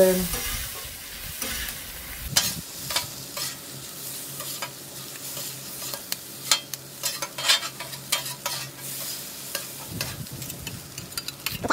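Chicken fried rice sizzling on a hot flat-top griddle while two metal spatulas scrape, chop and toss it across the steel surface, with frequent clicks and scrapes over a steady sizzle.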